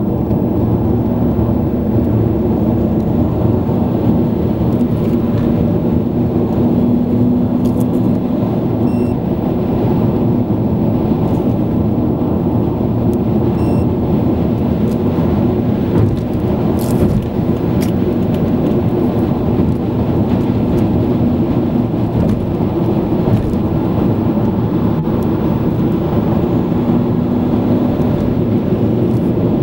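Steady road and engine noise inside a car cruising at motorway speed: a loud, even low rumble with a steady hum underneath.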